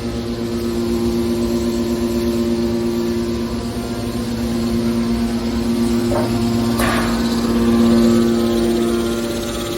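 Hydraulic baler machinery running with a steady hum, with two brief knocks about six and seven seconds in.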